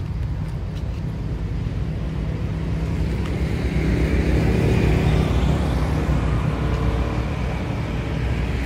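A motor vehicle passing, its engine hum growing louder around the middle and easing off toward the end.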